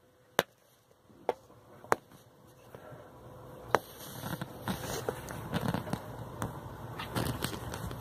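Four sharp clicks or knocks, irregularly spaced over the first four seconds, the last the loudest, followed by rustling and scraping that grows louder with small ticks mixed in.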